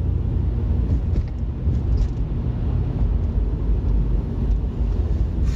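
Steady low rumble of engine and road noise inside the cab of a moving truck.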